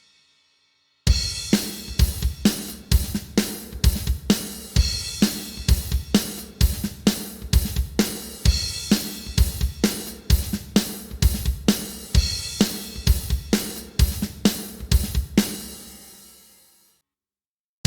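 Sampled acoustic drum kit from the Stigmatized Drummer Kontakt library playing a steady groove. It starts about a second in, stops near the end and leaves the cymbals ringing out.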